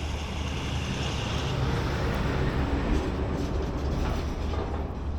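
Road traffic passing, a steady low rumble with tyre hiss that swells a little midway.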